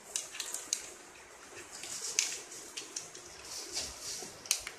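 Soft clicks and rustles of clear plastic tubing and small plastic fittings being handled and pushed together, with a few sharper ticks scattered through.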